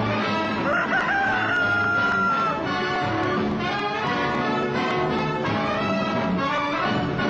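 Brass-led orchestral music. About a second in, a single long call slides up and is held for about a second and a half over the music.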